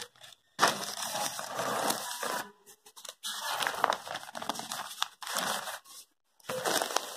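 Newspaper pages rustling and crinkling as they are handled and shifted, in several irregular bursts with short gaps between them.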